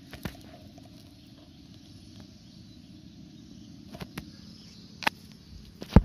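Camera handling noise while the camera is held inside a bird nest box: a few sharp knocks and clicks, the loudest near the end, over a low steady rumble.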